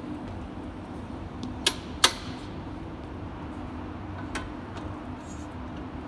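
A light aircraft's four-cylinder engine being pulled through by hand at the propeller, with two sharp clicks close together about a second and a half in and a fainter click a little past four seconds, over a steady low hum.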